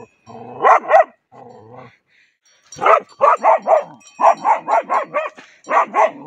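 German Shepherd barking angrily while chasing bulls off a field: a couple of barks about a second in, then from about three seconds in, rapid runs of barks, around four or five a second.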